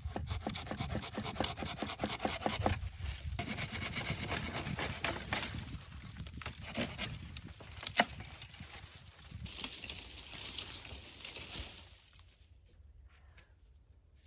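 Wood being rubbed and scraped, with many small crackles, a sharp snap about eight seconds in and a hissier scrape shortly before it stops, about twelve seconds in.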